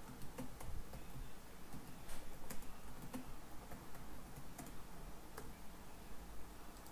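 Typing on a computer keyboard: irregular keystroke clicks as a name is entered into a web form.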